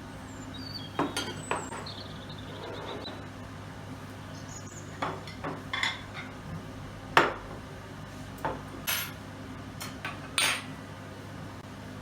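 Dishes and cutlery clinking and knocking: a dozen or so short, scattered clinks, the loudest about seven seconds in and another near ten seconds.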